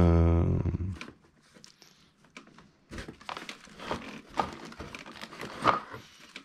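Rummaging through a storage cupboard of RC buggy tyres: scattered crinkling and rustling of packaging with light knocks as tyres are pulled out and handled. A brief low pitched hum comes right at the start.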